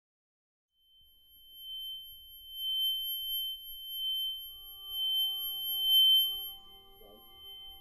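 A steady high-pitched ringing tone, like ringing in the ears, swelling and fading several times. Fainter, lower held tones join about three seconds in. It is a film sound effect for a stunned man's tinnitus-like ringing as bad news fails to reach him.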